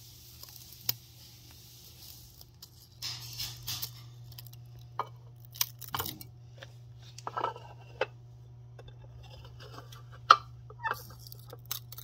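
Handling noises from a clear plastic ant container and metal tweezers: scattered small clicks and taps with brief plastic rustles, over a faint steady hum. A sharp click a couple of seconds before the end is the loudest sound.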